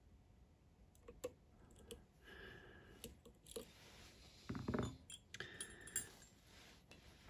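Faint clicks and scrapes of a dimple pick and tension tool working the pins inside a three-row dimple lock. A louder rustle comes about four and a half seconds in.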